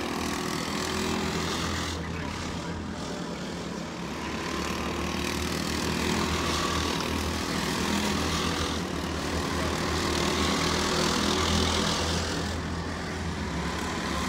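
Several 270cc four-stroke racing kart engines running around the circuit together, making a steady blended drone that swells a little as the karts come nearer.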